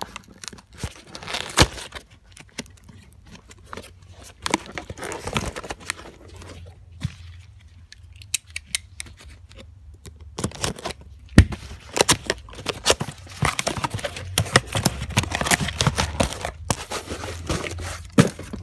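A cardboard tool box and its plastic packaging being opened and unpacked by hand: cardboard tearing, plastic crinkling, and many irregular clicks and knocks, busier in the second half.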